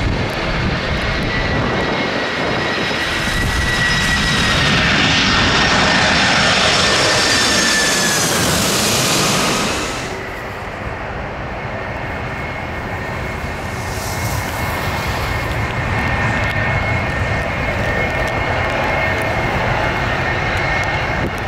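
Boeing 747 jet engines on landing approach passing close by: a loud rumble with whining tones that slide down in pitch as it goes past, loudest about eight seconds in. About ten seconds in the sound drops abruptly to a quieter, steady jet whine.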